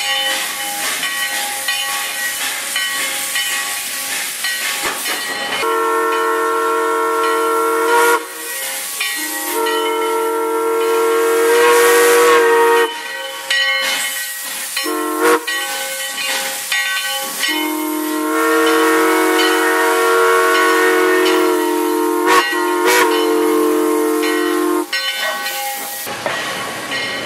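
Steam locomotive venting steam with a loud hiss, then its multi-note chime whistle blowing four blasts, long, long, short, long, the grade-crossing signal. Near the end the whistle stops and the train rumbles past.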